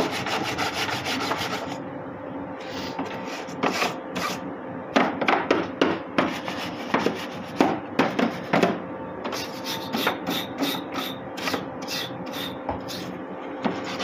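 Large brush scrubbing dust from a dehumidifier's plastic housing and coil fins: dense continuous scrubbing at first, then quick separate strokes.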